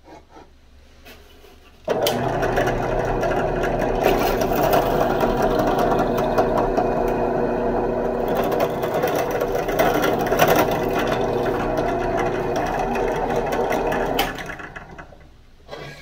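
Drill press motor running while the bit bores a hole through a knife handle scale. It starts abruptly about two seconds in, runs steadily, and winds down near the end.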